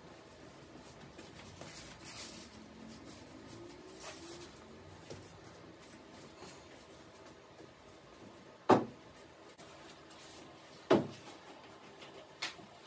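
Workshop handling noises: light rustling, then two sharp knocks about two seconds apart and a fainter one near the end, like objects set down or bumped on a workbench.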